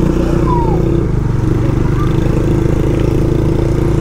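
Motorcycle engine running steadily while under way. A short falling chirp sounds about half a second in.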